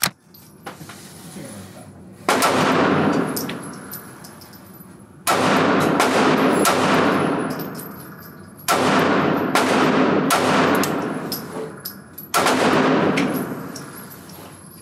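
Springfield Armory Hellcat 9mm micro-compact pistol fired in four quick strings of several shots each, roughly three seconds apart, every shot ringing out in the indoor range.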